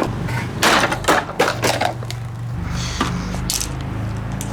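Electric table fan running with a steady motor hum while it is struck. Several sharp clattering knocks come in the first two seconds and one more about three and a half seconds in.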